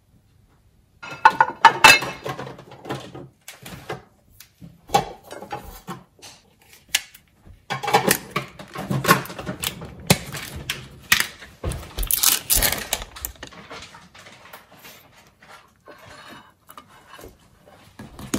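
Kitchen handling noises: a plate and a plastic cream-cheese tub being picked up and set down, and a spoon spreading cream cheese on a tortilla. Irregular knocks and rustles start about a second in, busiest near the middle.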